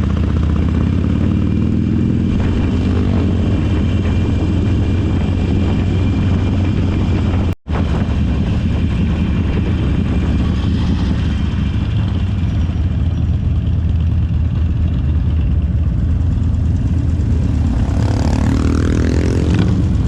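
Motorcycle engine running steadily under way. The sound drops out for an instant about seven and a half seconds in, and near the end an engine note climbs as it revs up.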